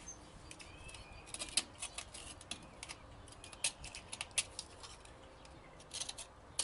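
Knife blade scraping heavy corrosion off a semi-truck battery cable's terminal lug in quick, short scratchy strokes. There is a dense run from about a second in through the middle, a pause, then another run near the end.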